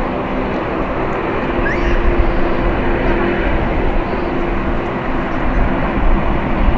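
Boeing 787 airliner's General Electric GEnx-1B turbofan engines running at low taxi power: a steady, loud low rumble with a faint hum.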